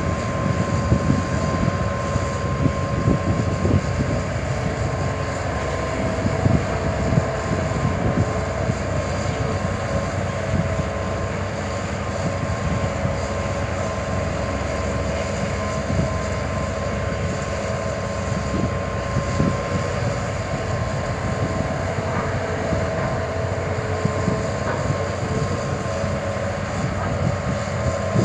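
Hitachi Zaxis 200 excavator's diesel engine running steadily under load, a continuous drone with a faint steady whine. Occasional low thuds come through, more often in the first several seconds.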